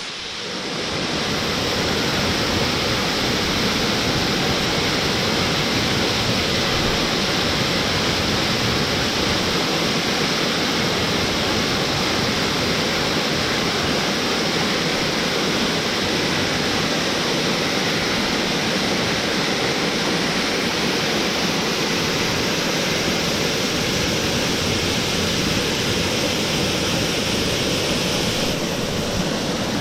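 Waterfall rushing steadily with a dense, even noise of falling water.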